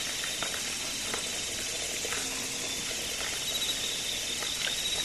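Steady night chorus of insects and frogs, a continuous high trill with a fast-pulsing note, with a few faint ticks and rustles of footsteps in the grass.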